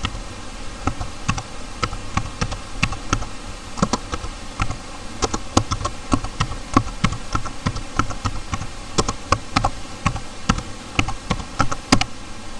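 Computer keyboard keys clicking as text is typed, irregular keystrokes several a second.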